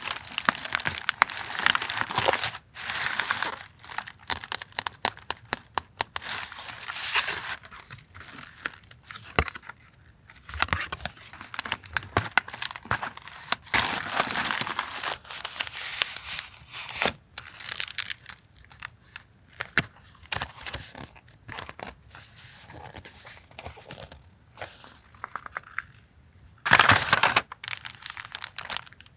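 Paper and plastic stationery packaging crinkling, rustling and tearing in irregular bursts, with sharp taps and clicks, as journaling paper goods are unwrapped and handled on a desk.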